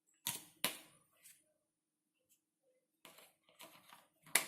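A few light, sharp clicks and knocks of hard items being handled in the dishwasher: two near the start, a small one after, then a quicker cluster ending in a sharper click near the end.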